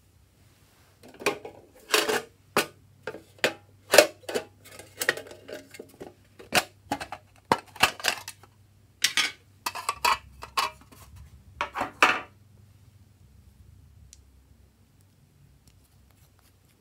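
Hard plastic cosmetic cases being handled and opened: a run of sharp clicks and clacks, several close together at times, which stops about twelve seconds in and leaves only faint handling noise.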